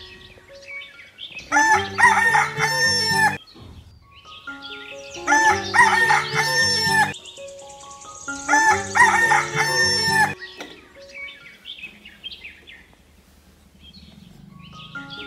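Rooster crowing three times, each crow lasting about two seconds.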